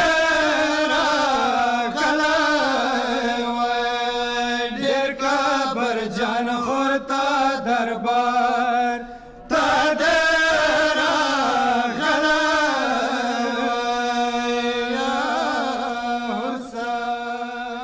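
Several men chanting a Pashto noha, a Shia Muharram lament, together in long held lines. They break for breath about nine seconds in, start the next line, and trail off near the end.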